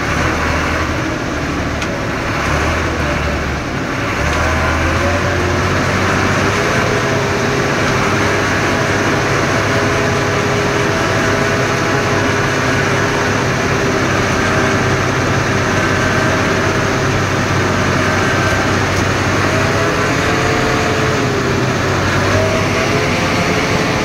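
Motor vehicle engine and road noise heard from inside the cab: a steady low rumble with a whine that drifts slightly up and down in pitch, growing louder about four seconds in as the vehicle gets moving.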